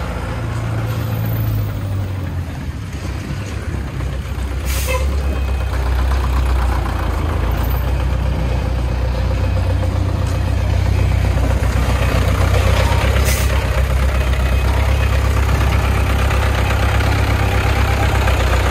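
Diesel engines of a homemade three-wheeled công nông dump truck running with a deep, thick rumble that grows louder after about eleven seconds. Two short hisses from its air brakes, about five seconds in and again about thirteen seconds in.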